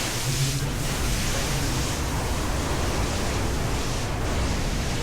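Steady rush of wind and water from a speedboat under way, with a low engine drone underneath.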